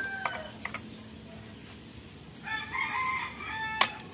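A rooster crowing once, a call of about a second and a half starting about two and a half seconds in, with a few light clicks at the start and a sharp click near the end.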